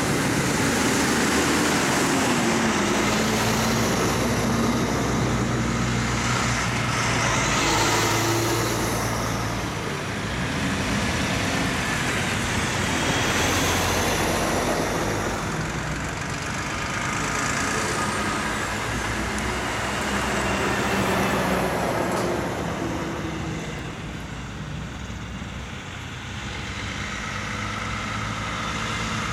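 A convoy of heavy diesel trucks, Kenworth cab-over prime movers and a Volvo, driving past one after another with engines pulling and tyres rolling on the road. The sound swells as each truck goes by and dips briefly before the next arrives near the end.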